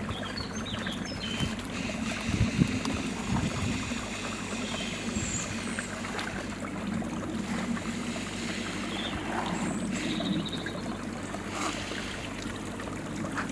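Steady trickling, running-water noise, with a few faint high chirps over it.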